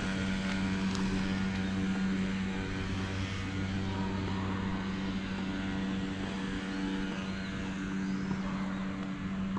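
A steady machine hum at a constant low pitch, with no change in speed.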